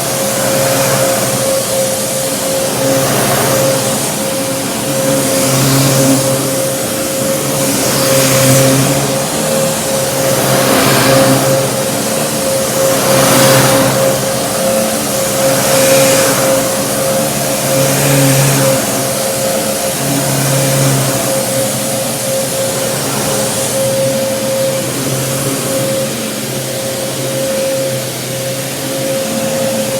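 12-amp Kenmore Progressive upright vacuum cleaner running, a steady motor hum with a rush of air that swells and eases about every two and a half seconds.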